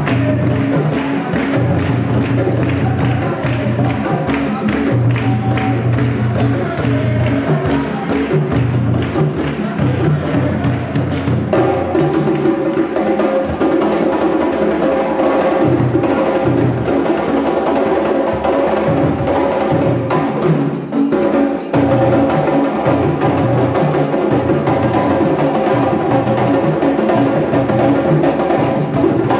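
Music with busy percussion and ringing pitched tones over a steady beat; the sound fills out about twelve seconds in and dips briefly just after twenty seconds.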